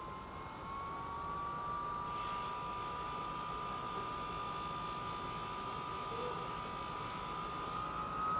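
Small electric fan of a BioLite FirePit blowing air into the fire, a steady whine that creeps slightly up in pitch. A faint hiss joins about two seconds in.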